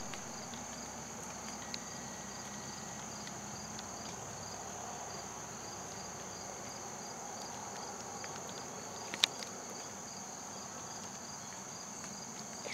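Insects calling steadily: a continuous high trill with a second, evenly pulsing chirp just below it. A single sharp click is heard about nine seconds in.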